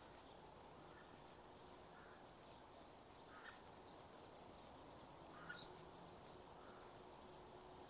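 Near silence: faint outdoor quiet with a few short, faint bird calls, the clearest about three and a half and five and a half seconds in.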